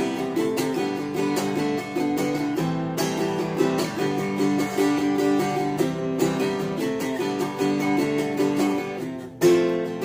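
An Epiphone Lil' Tex travel acoustic guitar with a solid spruce top and sapele body is played in a repeating chord pattern of picked notes. Just after nine seconds the playing drops away briefly, then comes back with a loud strummed chord.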